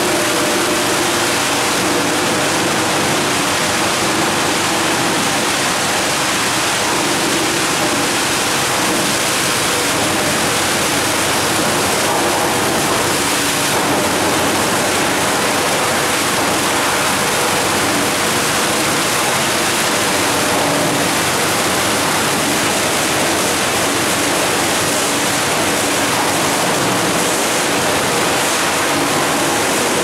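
20 TPH industrial wood chipper and its rotary mesh screen running: a loud, steady rushing noise with a faint steady hum underneath.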